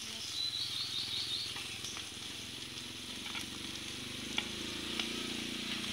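Salted fish sizzling in hot oil in a metal pan over a wood fire, a steady hiss, with a couple of sharp clicks of a metal spoon against the pan in the second half.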